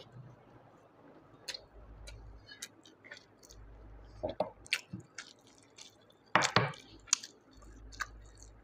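Close-miked eating of snail curry by hand: wet chewing and short sucking slurps as snail meat is sucked from the shells, with scattered lip and tongue clicks and a louder slurp about six and a half seconds in.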